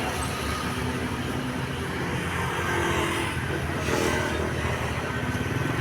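Road vehicle engine running steadily amid traffic noise, with a short swell of hiss about four seconds in.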